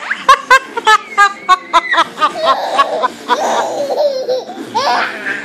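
Baby laughing hard while being tickled: a fast run of high-pitched laughs, about five a second, for the first two seconds, then longer stretches of laughter.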